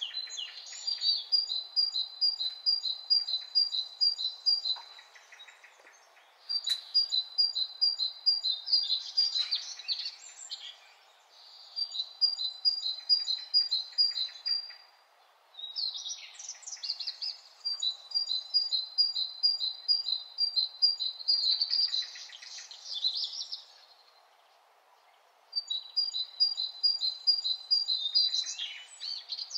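A songbird singing repeated phrases of quick, evenly spaced high notes, each phrase lasting a few seconds and ending in a brief flourish, with short pauses between phrases. A steady low background hum runs underneath.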